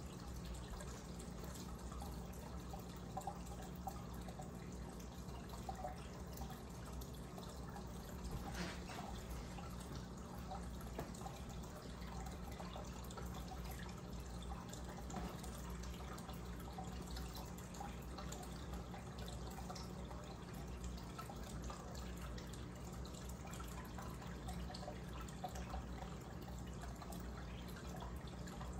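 Aquarium disc air stone bubbling: a steady trickle of fine bubbles with small scattered drips and pops, over a low steady hum.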